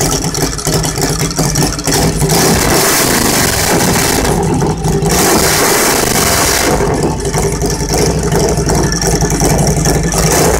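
Custom chopper's V-twin engine running loud, revved twice for about two seconds each, around two and five seconds in, with a steady rumble between.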